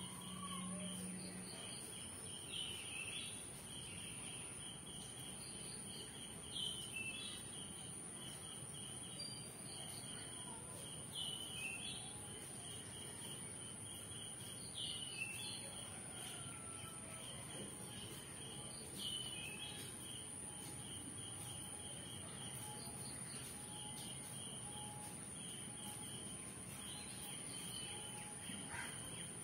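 Insects chirping steadily in a fast pulsing trill over a thin high whine, with a bird giving short swooping chirps every few seconds.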